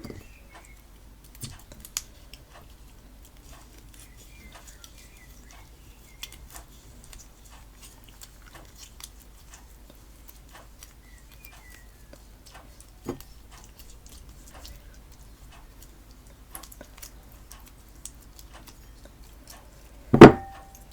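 Faint sticky, squelching clicks of a homemade PVA-glue and bicarbonate-soda slime mixture being worked and stirred, with a louder knock about 13 seconds in and a single loud knock near the end.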